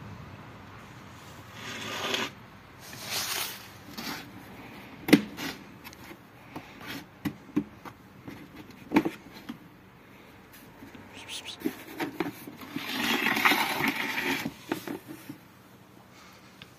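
A plastic pet carrier being handled: sharp clicks and knocks from its grille door and latch, with stretches of scraping and rubbing. The loudest knock comes about a third of the way in.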